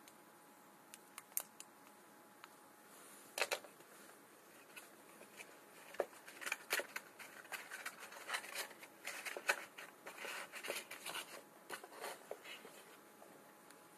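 Hands handling a small cardboard phone box and its insert: scattered light clicks and taps, then busier scraping and rustling with small knocks from about six seconds in.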